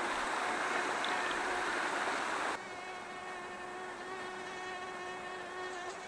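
Rushing water of a small rocky forest stream, which drops away abruptly about two and a half seconds in, leaving a steady high-pitched insect drone.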